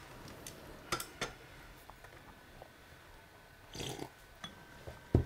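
Tableware at a meal: a few light clicks and clinks of bowls and chopsticks, with one louder knock near the end.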